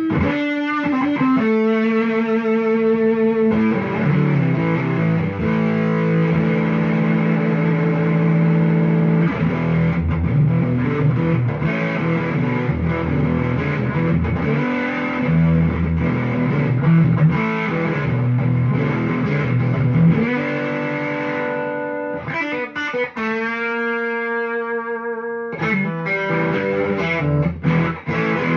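Electric Stratocaster guitar played through a Fuzz Face fuzz pedal into a 1965 Kent amplifier, a distorted tone. It opens on long held notes, turns to busy, dense playing, then rings out held notes again before picking back up near the end.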